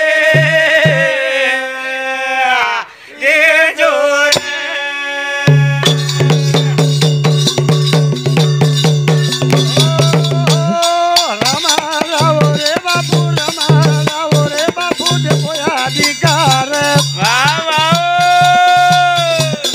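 Banjara devotional bhajan: a man's voice singing long, wavering held notes over fast jingling metal percussion from brass cymbals. A steady low pulsing beat comes in about five seconds in.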